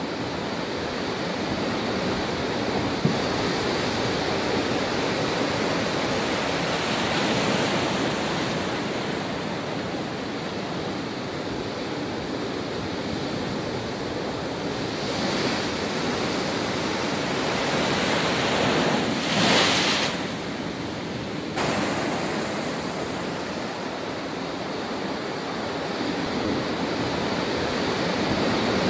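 Heavy storm surf in a cyclone-driven rough sea: a continuous rush of big waves breaking and crashing against a jetty and seawall. It rises and falls with the sets and is loudest about two-thirds of the way through.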